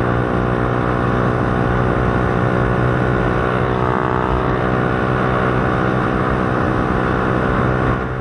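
Motorcycle engine running through an aftermarket Akrapovič-style exhaust at a steady engine speed while riding, the exhaust note holding one even pitch. The note drops off near the end.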